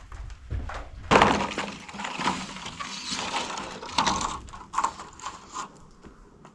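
Roof panels being handled and shifted, giving a run of irregular clattering knocks and crinkling, loudest about a second in and quieter toward the end.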